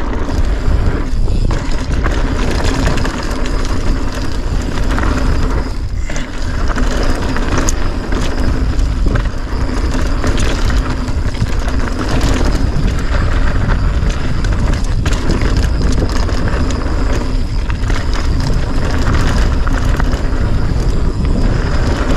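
Mountain bike rolling fast down a dirt trail: tyres on dirt with the bike rattling over bumps, and wind buffeting the camera microphone as a constant low rumble.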